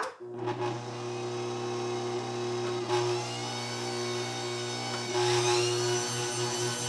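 Bosch Compact Kitchen Machine stand mixer running, its motor giving a steady whine over a low hum as the beater blends flour into cake batter. About five seconds in it gets louder, and near the end it throbs a few times a second.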